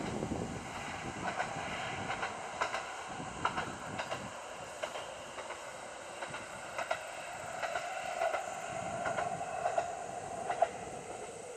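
KiHa 40 diesel railcar running past at a distance, its wheels clicking over rail joints in quick pairs about once a second over a steady hum.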